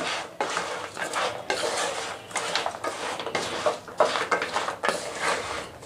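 Wooden spatula stirring and scraping fried shakkarpare pieces around a non-stick pan to coat them in thick sugar syrup, with irregular scrapes and light knocks of the pieces against the pan.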